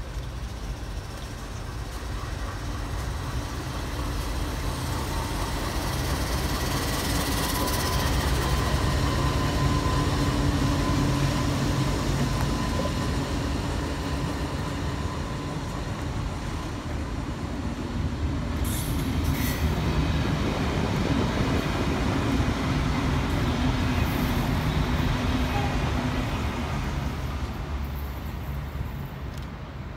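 Freight train passing close, led by an NR class diesel-electric locomotive (GE Cv40-9i): a steady low engine drone with the rumble of wheels on track. It swells louder twice and fades near the end. A short high-pitched screech comes about two-thirds of the way through.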